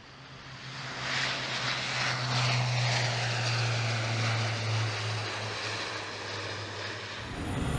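Airbus A400M's four Europrop TP400 turboprop engines and propellers at takeoff power: a steady low propeller drone over a rushing hiss, swelling over the first second or two and then holding.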